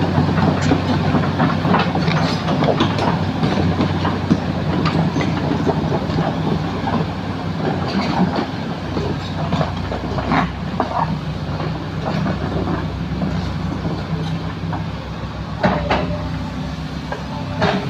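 Heavy diesel earthmoving machinery running steadily, with a low engine drone and scattered metallic clanks and rattles.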